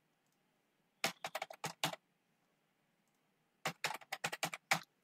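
Typing on a computer keyboard: two quick runs of key clicks, each lasting about a second, the first about a second in and the second near the end.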